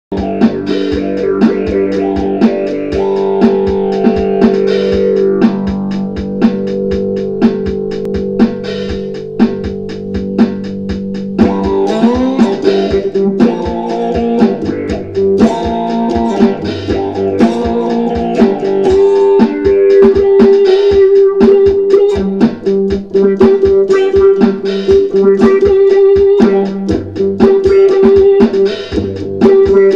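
Electric cigar box guitar played through an auto-wah envelope filter: a funk riff with slide glides between notes and a strong note repeated through the second half.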